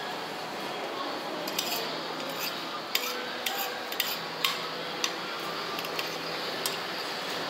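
Metal fork clinking and scraping against a ceramic plate: a string of sharp, irregular clinks over a steady background noise.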